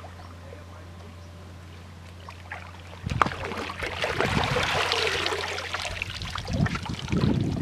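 Water splashing and sloshing, starting suddenly about three seconds in, from a hooked tambaqui thrashing at the pond surface as it is landed and freed.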